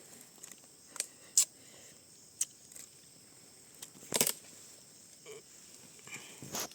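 A few scattered short, sharp clicks and snaps, the loudest a quick cluster about four seconds in.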